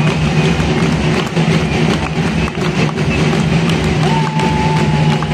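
Loud crowd noise mixed with music over loudspeakers, with one long steady high note held for about a second near the end.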